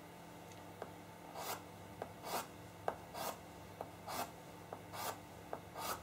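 Sharpened Faber-Castell Pitt pastel pencil scratching short, quick strokes across pastel paper as whiskers are flicked in. There are six strokes at about one a second, beginning after about a second and a half, with light ticks of the tip touching the paper between them.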